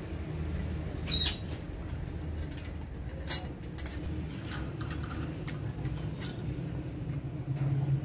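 Alexandrine parakeets handling stainless-steel bowls and cups on a wire cage top: a few sharp metallic clinks, the loudest about a second in, over a steady low hum.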